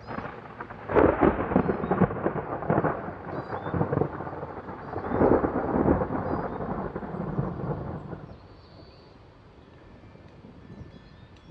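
Thunder rumbling, with two loud crackling peaks, one about a second in and another around five to six seconds, then dying away after about eight seconds.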